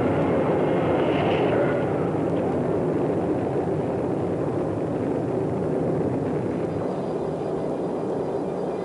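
Saturn V rocket engines at liftoff: a steady, deep rumble of noise that slowly fades.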